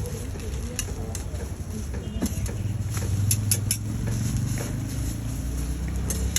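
A motor vehicle engine running close by, a low rumble that grows louder about two and a half seconds in, with a few sharp clicks over it.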